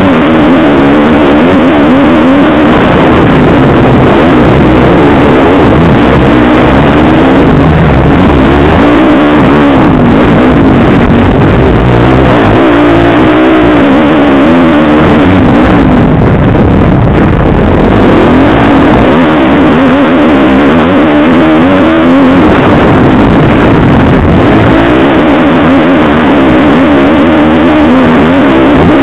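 Motocross bike engine heard up close from the bike itself, running hard and very loud throughout. Its pitch rises and falls repeatedly as the rider opens and closes the throttle through the course.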